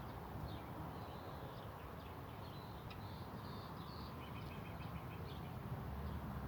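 Birds calling, with scattered short high notes and a quick run of repeated chirps about four and a half seconds in, over a steady low rumble.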